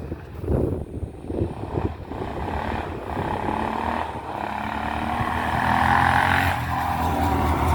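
Honda ATV's single-cylinder four-stroke engine running and getting steadily louder, its pitch creeping up as it comes closer or revs, after a few knocks at the start.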